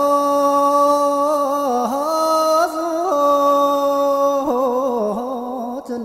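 A solo voice singing a slow, chant-like melody: long held notes with wavering, ornamented turns between them.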